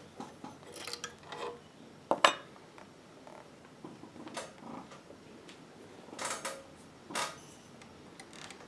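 Scattered light metallic clicks and clinks from handling the needle plate of an industrial sewing machine as it is taken off to expose the rotary hook. The sharpest click comes about two seconds in, with a few more spread through.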